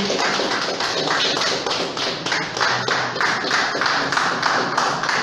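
A small audience applauding: many hands clapping quickly and irregularly, without a break.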